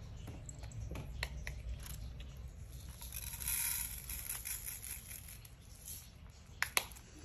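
A cat walking across a diamond painting canvas, rustling and crinkling its plastic cover sheet, with scattered light clicks. The rustle is strongest about three to four seconds in, and there are two sharp clicks near the end.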